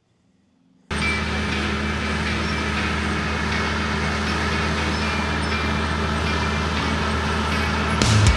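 John Deere bulldozer's diesel engine running at a steady speed, cutting in suddenly about a second in.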